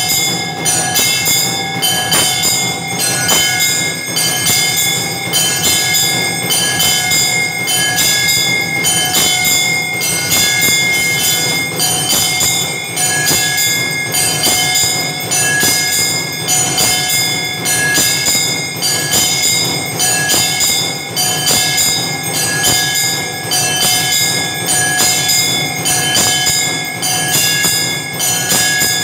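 Temple aarti bells and gongs clanging in a fast, steady repeating rhythm, with several bell tones ringing on continuously underneath.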